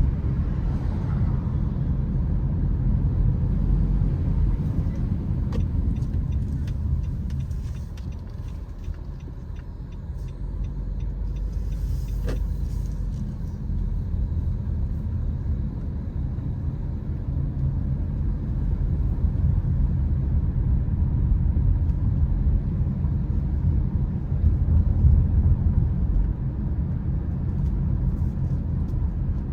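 Car driving on city streets: a steady low rumble of engine and road noise, easing off for a few seconds near the middle.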